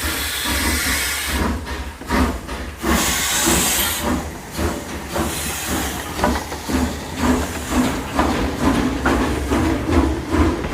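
Steam locomotive letting off hissing bursts of steam, then chuffing in a steady beat of a little over two strokes a second as it gets under way.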